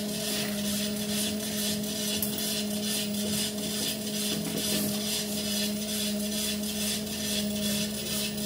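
Motorized treadmill running steadily: a constant electric motor hum under a hiss from the moving belt that pulses about three to four times a second.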